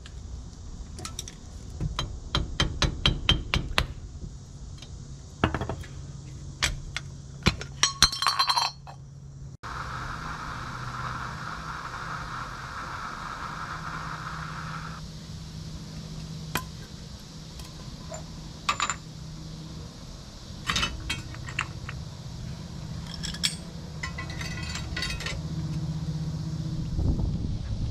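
Steel hand tools clinking and tapping on a GMC motorhome's front axle hub as the cotter pin and castle nut come off: a quick run of about eight taps, then scattered ringing metal clinks. A steady hiss runs for about five seconds in the middle.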